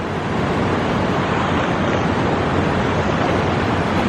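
Swollen river in flood, its water rushing steadily.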